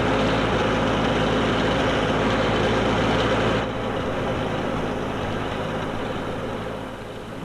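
A loud, steady engine roar from a heavy vehicle that drops in level about halfway through and fades out near the end.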